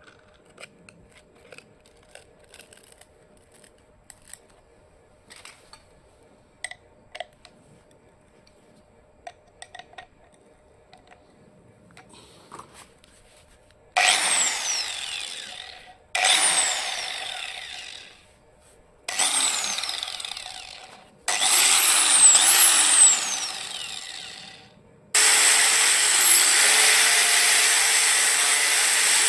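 Faint clicks and knocks of handling, then an angle grinder switched on in four short bursts about halfway through, each winding down in pitch after release, and finally run steadily for about four seconds.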